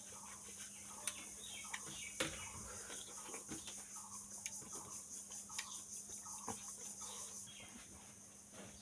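Close-up wet chewing of watermelon with sharp mouth clicks and smacks. Behind it run a steady drone of crickets and a hen clucking now and then.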